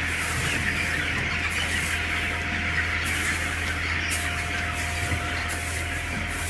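A crowd of young poultry cheeping continuously together, over a steady low hum.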